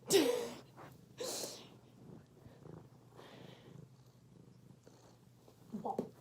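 A cat purring, a faint steady low rumble, with two short, loud hissy sounds in the first second and a half and a brief pitched sound near the end.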